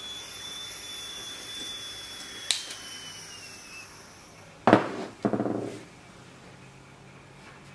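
Soldering iron melting solder onto a twisted speaker-wire end. There is a steady hiss with a thin high whistle that drops in pitch after a tick about two and a half seconds in, and it fades out around four seconds. A sharp knock follows a little past the middle.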